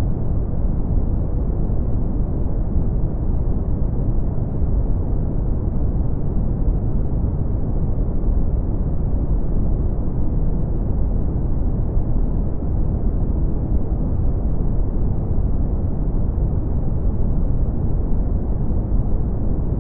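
Steady brown noise: a deep, even rushing hiss weighted toward the bass, with no change in level or character.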